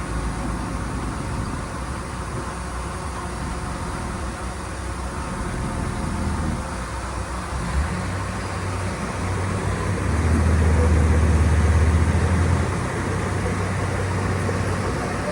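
Diesel engine of heavy earthmoving machinery running steadily, growing louder for a couple of seconds about ten seconds in as it works harder, then settling back.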